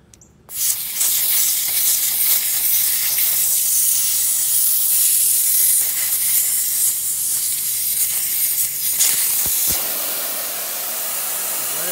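Air hissing steadily out of a Land Rover Series 2a tyre through the valve stem as the valve core is taken out, starting suddenly about half a second in: the tyre is being aired down.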